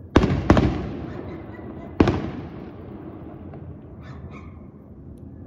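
Aerial fireworks exploding: two sharp bangs close together about a quarter of a second in, a third about two seconds in, and a fourth at the very end, each echoing and trailing away over about a second.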